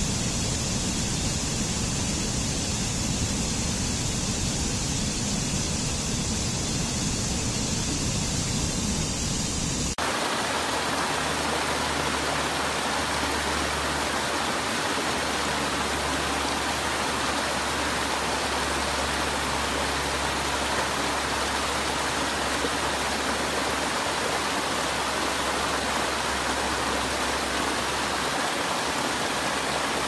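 Rushing water of a rocky stream cascading over boulders, a steady rush with a low rumble. About ten seconds in it cuts abruptly to another stream's small cascades, an even rush with less low rumble.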